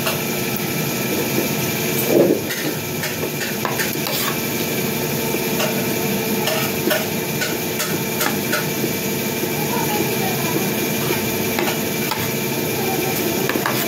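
A metal spoon clinking and scraping now and then against a ceramic bowl of rice, over a steady background hiss with a faint hum.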